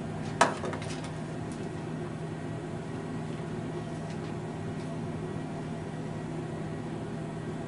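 Steady room hum and hiss of a quiet office, with one sharp knock about half a second in as a book is set down on a wooden desk, followed by a few faint ticks as it is handled and opened.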